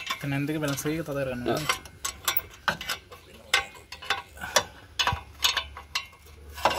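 Spanner working the exhaust-pipe flange nuts at the cylinder of a two-stroke three-wheeler engine: a run of sharp metal clicks, about three a second, as the nuts are tightened down.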